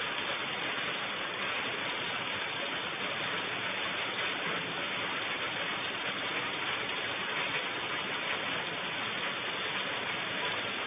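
Steady rain falling, an even hiss with no separate impacts.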